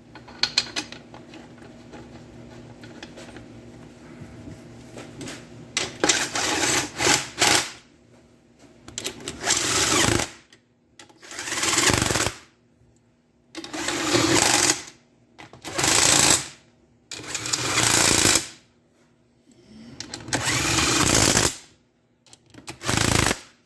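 Fleece sleeve brushing against the microphone in repeated rustles about a second long, every second or two, after a few light clicks of handling.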